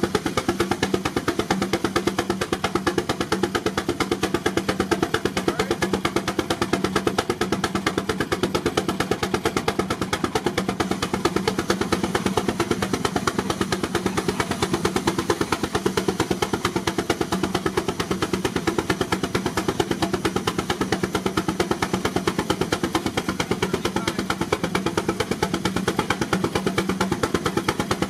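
Baker Uniflow steam traction engine running under heavy load on a belt-driven Prony brake, with rapid, even exhaust beats and the machinery's steady running noise.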